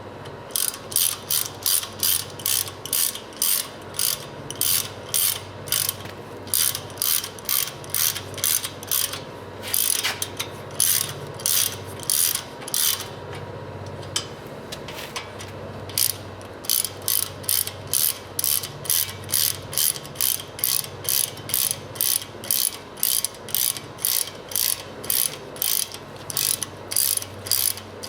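Hand ratchet clicking in quick back-and-forth strokes, about two a second, tightening the brake caliper bolts on a GM 12-bolt rear axle. It pauses briefly twice.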